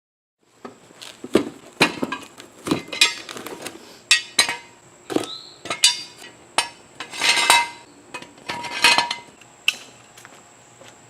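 Hand tools knocking and clinking on metal: about a dozen sharp metallic strikes and clanks at uneven intervals, starting suddenly just after the start.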